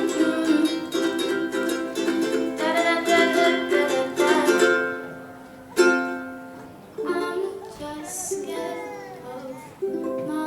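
Ukulele strumming chords as accompaniment to an original song. Near the middle the strumming thins out: one chord is struck about six seconds in and left to ring, and full strumming comes back near the end.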